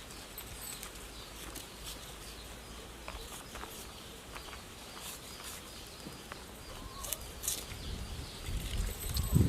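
Quiet outdoor farm ambience with scattered faint bird chirps and small ticks. A low rumbling noise builds over the last second or so.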